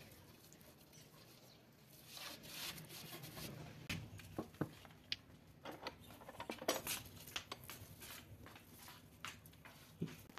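Wet mud-and-straw mix being packed by hand around a plastic bucket inside a metal bucket: faint soft slaps and scraping, with irregular small knocks and clicks against the buckets.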